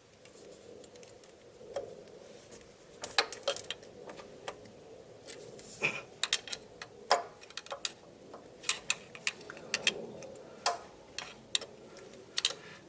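Irregular sharp metallic clicks and ticks of a steel snap ring being worked into place with snap ring pliers on an A/C compressor. The clicks are sparse at first and come more often from about three seconds in.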